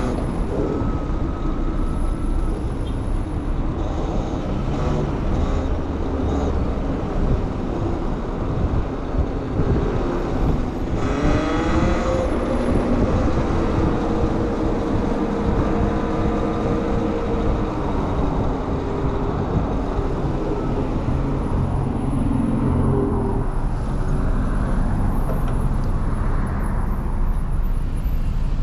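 Wind rush and road noise while riding an electric dirt bike in city traffic, with motor vehicles passing. About eleven seconds in there is a short hiss, then a motor tone rises and holds for several seconds before fading.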